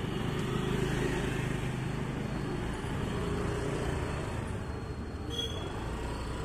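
A motor vehicle's engine running with a steady low hum.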